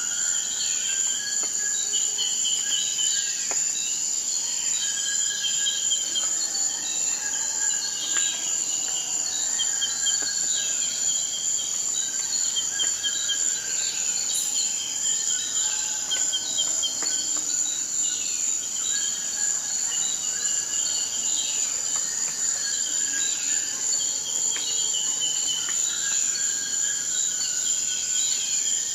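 Insect chorus: a steady high-pitched trill with many shorter repeated chirping calls at lower pitches over it.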